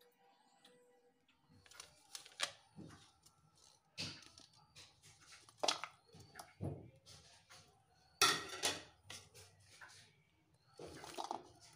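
Irregular kitchen handling sounds: ceramic bowls and a plate knocked and slid on a counter, a few sharp clatters among softer rustling, over a faint low hum. Near the end, cut onion pieces are tipped from a plate into a bowl of raw meat.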